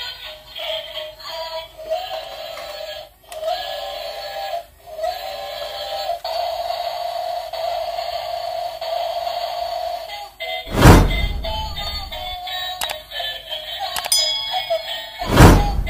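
Toy steam locomotive with flashing lights playing its electronic tune: a simple melody of beeping notes, one held for about four seconds. Two loud whooshes cut in near the end.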